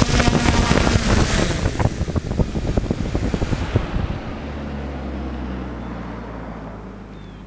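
FPV hexacopter's propellers running with heavy wind noise as it sets down on gravel, with a scatter of ticks at touchdown. About four seconds in the rushing stops and the motors drop to a low steady hum that slowly fades as they wind down after landing.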